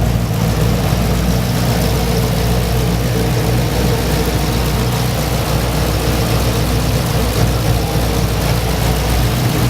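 Car engine idling steadily, a deep, even rumble that holds without revving.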